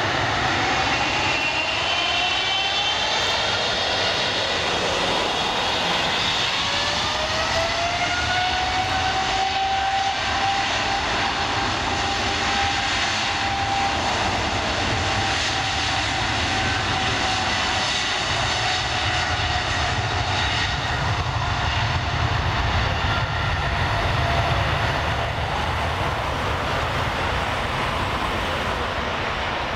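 Jet airliner engines: a whine climbs in pitch over several seconds, then holds steady over a continuous rumble. The whine fades in the second half while the rumble carries on.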